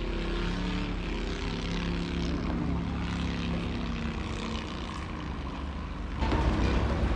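Thai longtail boat engine running with a steady drone across the water. About six seconds in, a louder, rougher noise joins it.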